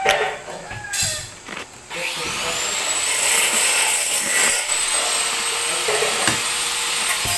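Spoon and fork clinking and scraping at first, then about two seconds in a steady whirring noise starts, with a high whine that rises and then holds, like a machine running.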